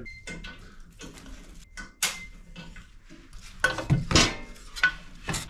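Split kindling sticks clattering and knocking against a small metal wood stove as they are handled and loaded into its firebox, a string of sharp wooden and metallic knocks with the loudest cluster a little after the middle.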